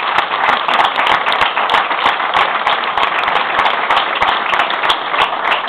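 Indoor audience applauding: many people clapping together, dense and sustained.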